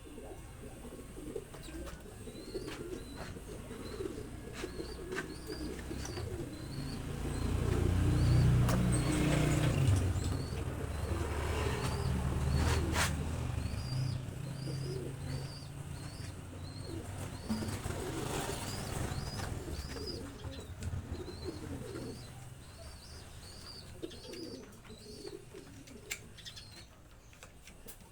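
Birds chirping in quick repeated series of short high notes, with lower calls underneath; a low rumble swells about a third of the way in and fades.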